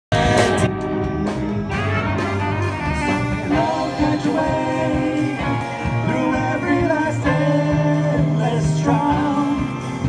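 A live band playing a jazzy, horn-led passage: saxophones, trumpet and trombone over keyboard and drums.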